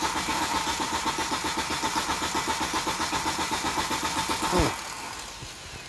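A 1993 Volvo 940 Turbo's four-cylinder engine is being cranked on the starter motor, with a rapid, even beat and a steady whine, and it never catches. About four and a half seconds in, the starter lets go and winds down with a falling pitch. The car will not start, a no-start later traced to a failed fuel pump.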